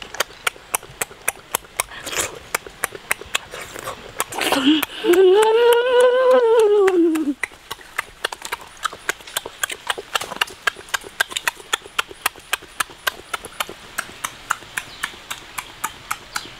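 A person humming a drawn-out 'mmm' that rises and then falls in pitch about five seconds in, over an even run of sharp clicks, about four a second.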